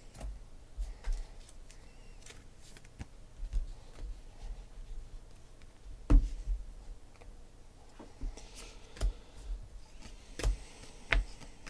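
Trading cards being handled on a table: scattered light taps and clicks, the loudest about six seconds in, with a brief soft rustle of cards shortly before the end.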